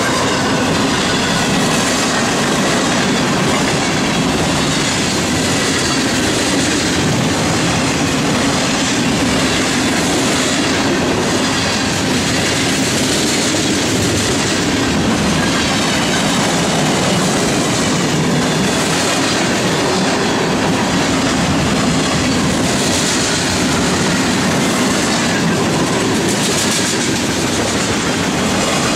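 Freight train cars rolling past close by at speed: the loud, steady noise of steel wheels running on the rails.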